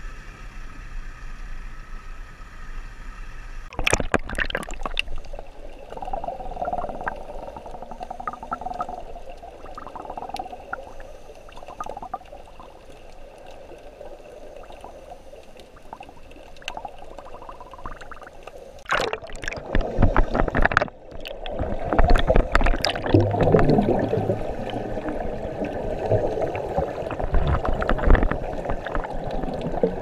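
Sea water sloshing and gurgling around a camera as it goes under, with a sharp splash about four seconds in after a steady hum. Roughly two-thirds of the way through, loud rushing, crackling bubble noise starts: scuba divers' exhaled air bubbling up.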